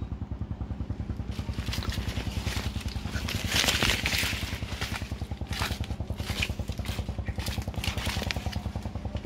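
A small engine running steadily with a fast, even pulse. Dry fallen leaves rustle and crunch underfoot around four seconds in.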